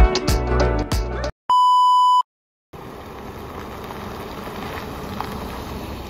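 Background music with a beat cuts off about a second in, followed by a single steady electronic beep lasting under a second, an edit sound effect. After a brief silence, a steady background noise takes over.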